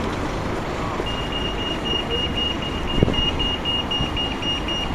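Pedestrian crossing's audible signal beeping in a quick, high-pitched pulsing run that starts about a second in, the sign that the green man is showing and it is safe to cross, over steady road traffic noise.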